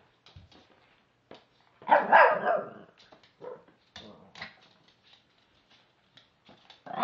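A chihuahua–shih tzu cross puppy barking loudly about two seconds in, then once more shortly after, with scattered light clicks and taps in between. Another bark starts right at the end.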